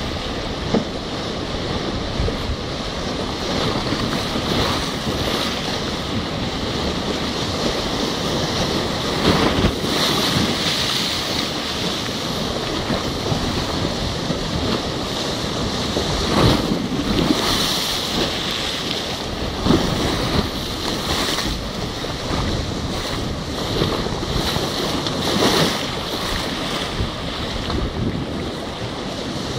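Turbulent water rushing and churning past a concrete wall, a steady loud roar, with wind gusting on the microphone every few seconds.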